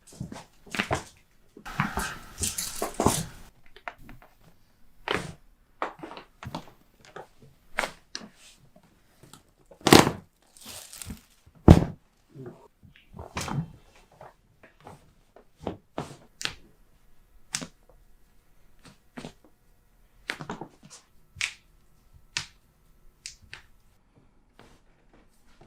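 Chiropractic adjustments: a string of short, sharp cracks and pops from joints being manipulated, mixed with rustling and thuds. Two heavy thumps, about ten and twelve seconds in, are the loudest.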